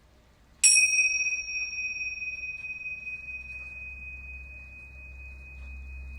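A metal chime struck once, about half a second in. It sets up a single high, pure tone that rings on and slowly fades, while its higher overtones die away within a few seconds.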